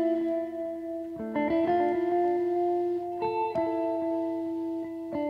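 Background music: sustained chords, each struck and left to ring, changing every couple of seconds.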